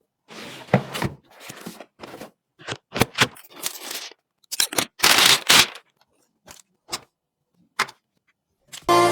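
A string of short handling sounds from computer parts and packaging: scrapes and rustles, then sharp clicks. The longest scrape comes about five seconds in, and a few single clicks follow.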